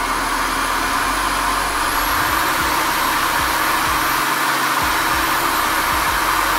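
Corded electric drill running at speed, its motor whine climbing in pitch over the first couple of seconds and then holding steady. It is spinning an office-chair caster wheel against a cloth held to it, to clean off the dirt.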